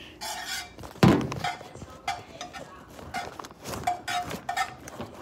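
Cookware being handled: a heavy thunk about a second in, then a quick run of clinks and knocks of utensils against a pan, several of them briefly ringing.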